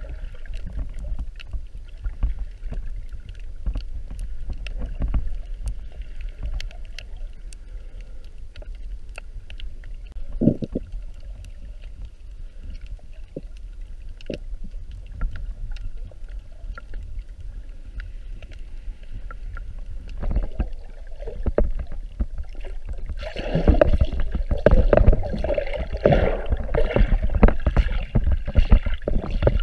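Underwater camera audio while snorkeling: a muffled low rumble of moving water with scattered sharp clicks. About three-quarters of the way through it turns into louder sloshing and splashing as the swimmer moves through shallow water near the surface.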